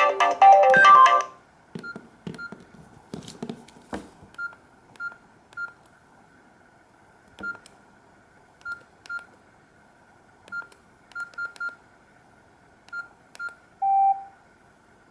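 Nokia E66 mobile phone: the last second of a ringtone, then short keypad beeps at irregular intervals as keys are pressed, with a slightly longer, lower beep near the end.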